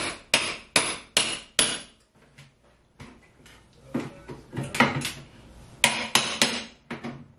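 Claw hammer driving a pry bar in behind a wall-mounted wooden kitchen cabinet, to pry it off the wall: a quick run of sharp knocks about two or three a second, a short pause, then slower, irregular strikes with scraping.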